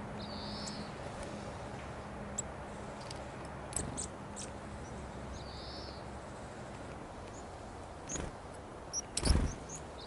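Small wild birds calling with scattered short, high chirps and two longer buzzy notes. Near the end comes a loud, sudden flutter of wings close by as a varied tit flies in to land on the hand.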